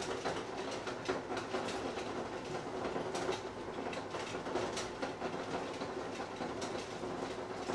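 Water boiling hard on the stove, giving off heavy steam: a steady rushing noise scattered with many small irregular ticks and clicks.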